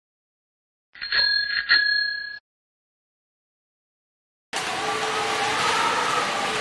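Bicycle bell rung twice, two bright rings about half a second apart, starting about a second in. After a gap, about four and a half seconds in, a steady rushing noise with faint tones starts abruptly.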